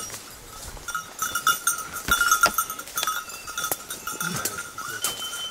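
A bell on a hunting pointer's collar jangling unevenly as the dog works through the undergrowth, with branches swishing and twigs snapping close by.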